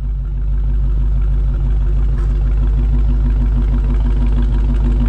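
Dodge Charger Hellcat's supercharged V8 idling with a steady, deep, pulsing rumble.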